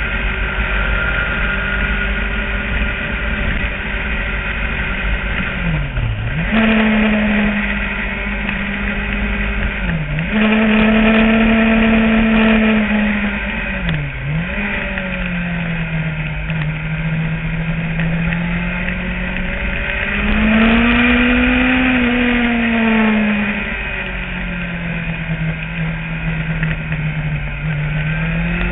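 Motorcycle engine pulling through a run of curves. The revs drop sharply and snap back up three times in the first half, then swell and fall off once, with wind buffeting the microphone.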